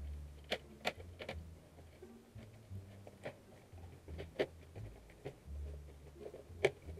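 Plastic snap clips of a Samsung RV510 laptop's case releasing as the body is pried apart, a series of sharp, irregularly spaced clicks over low rubbing and handling noise of the plastic shell.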